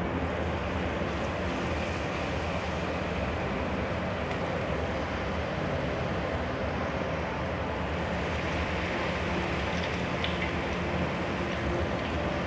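Corn and vegetable fritter batter (bakwan jagung) deep-frying in hot oil in a wok: a steady sizzle.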